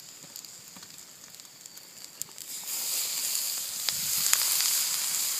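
Rum splashed onto a hot cooking stone sizzling: a sudden loud hiss that starts about two and a half seconds in and keeps going, with a few sharp pops.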